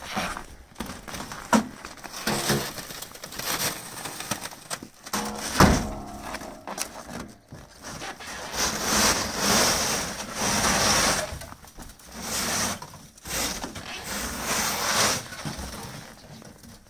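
Snow being swept and scraped off a truck's metal bonnet by gloved hands in repeated swishes, with crunching and a single knock about five and a half seconds in.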